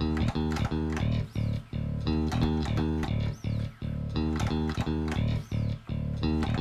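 Background music: a plucked bass and guitar playing a repeating rhythmic figure with a steady beat.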